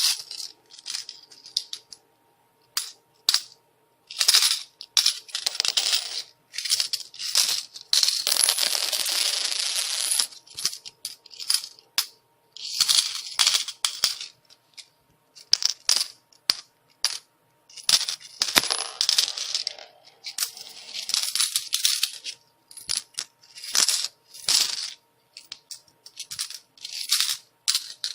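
Metal coins falling and pouring, in irregular clusters of clinks and jingling with short pauses between them, and a longer continuous pour about eight seconds in.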